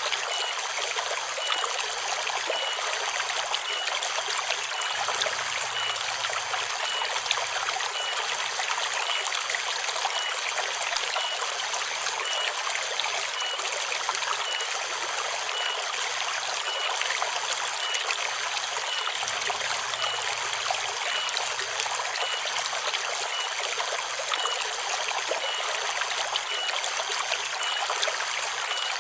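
River water trickling and flowing steadily in a forest stream.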